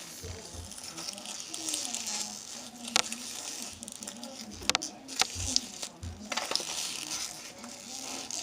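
Crunchy slime full of shredded bowl pieces and small rubber bands being squished and kneaded by hand: a continuous crackling with several sharp pops and snaps.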